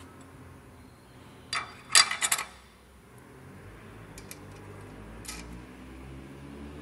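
Stainless steel parts of a vegetable dicing machine clinking as they are fitted together by hand: a short metal clatter about a second and a half to two and a half seconds in, the loudest sound, then a few light clicks.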